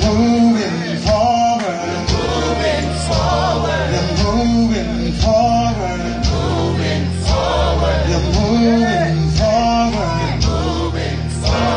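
Live gospel worship music: a man singing the lead over a band, with voices of the congregation singing along.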